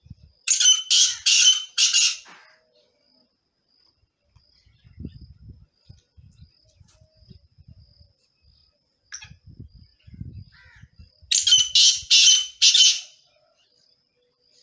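Male black francolin singing: two harsh, grating phrases of about five quick notes each, one near the start and one about eleven seconds in. A faint high ticking repeats about twice a second underneath, with low rumbles between the phrases.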